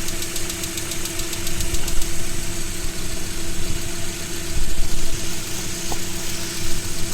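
ZMZ-406 inline-four petrol engine idling cold, with a fast, even knock from the engine that is clearest in the first couple of seconds.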